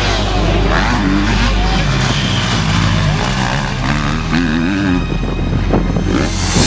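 Motocross bike engines revving, rising and falling in pitch.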